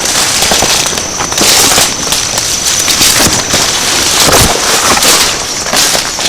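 Heavily boosted outdoor recording noise in brush: a loud steady hiss with irregular crackling, rustling swells and a few faint knocks, over a thin steady high-pitched tone.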